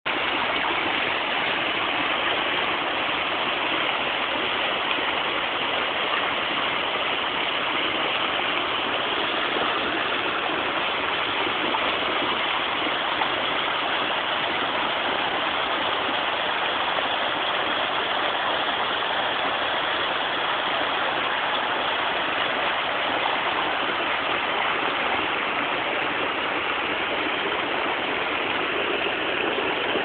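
Mountain stream rushing over boulders in small white-water rapids: a steady, even rush of water.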